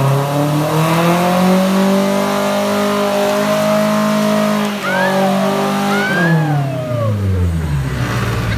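Nissan 240SX engine revving hard and held near the limiter during a burnout, rear tyres squealing and chirping as they spin. The revs climb through the first half, dip and pick up again twice, and climb once more near the end.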